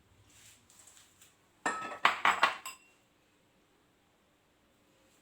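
Kitchen utensils and dishes clinking and clattering: a quick cluster of sharp metallic clinks a little under two seconds in, after a soft rustle.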